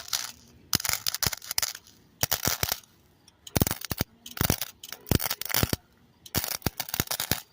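Welder laying a series of short tack welds on a bicycle part: about eight crackling bursts, each under a second or so long, stopping and starting with brief quiet gaps.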